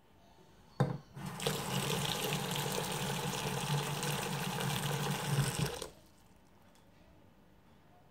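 A knock about a second in, then kitchen tap water running into a plastic basin of water holding green brinjals for about four seconds, cutting off suddenly.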